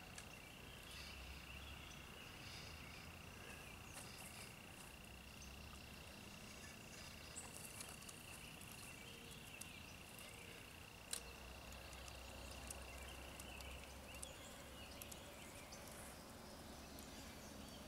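Quiet bankside ambience: a faint, steady, high-pitched insect trill that cuts off about 14 seconds in, with a few faint scattered clicks.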